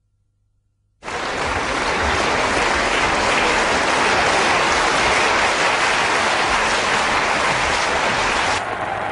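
Large audience applauding in a sustained ovation on an old film soundtrack, starting abruptly about a second in and holding steady; near the end the sound turns duller as its top end drops away.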